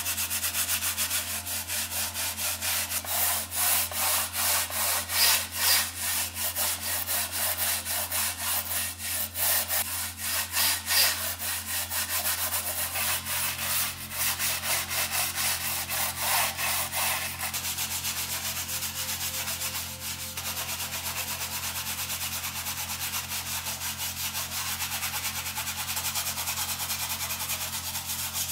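Brush and scouring pad scrubbing a soapy panel of an old radio cabinet, quick back-and-forth rubbing strokes. The scrubbing gets steadier and a little softer after about eighteen seconds.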